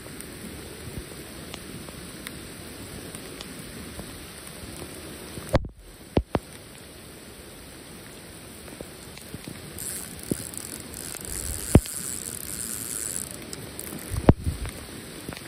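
Steady rain falling on a lake, an even hiss, with a few sharp clicks and knocks of fishing tackle: a pair near the middle and single ones later on.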